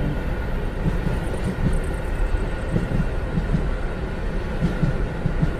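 Subway train running, heard from inside the car: a steady rumble with irregular low thuds.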